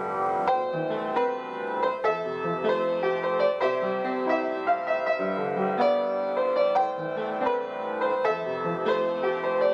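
Piano music with notes struck in quick succession and held chords.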